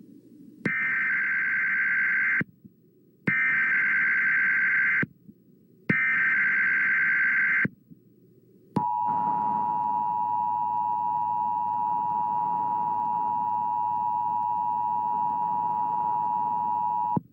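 Emergency Alert System header and attention signal. Three short bursts of SAME header data sound as harsh, buzzy electronic chirps, each under two seconds with brief silences between them. About nine seconds in, the steady two-tone attention signal begins and holds for roughly eight seconds.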